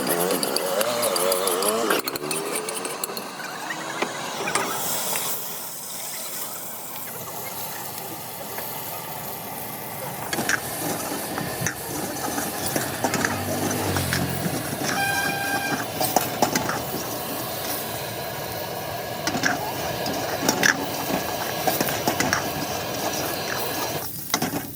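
Busy street noise: a steady din of passing vehicles and indistinct voices, with scattered clicks and clatter and a brief horn-like tone about fifteen seconds in.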